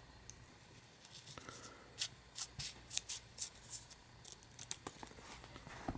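Small scissors snipping through a disposable camera's sticker label, a quick run of short, faint cuts starting about two seconds in.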